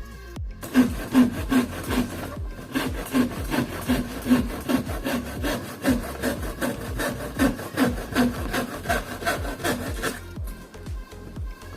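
Hand saw cutting through plywood in steady back-and-forth strokes, about two and a half a second, breaking off about ten seconds in.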